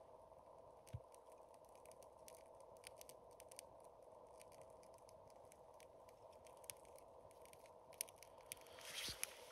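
Faint, sparse crackling and ticking of kindling catching flame at the top of a stacked split-firewood fire, with a soft knock about a second in and a rustle of movement near the end.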